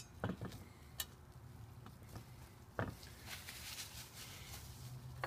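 Faint handling sounds: a few light clicks and knocks, the loudest about three seconds in, with a soft rustle, as a gloved hand sets the exhaust valve guide into its bore in a Briggs & Stratton engine's aluminum block. A low steady hum sits underneath.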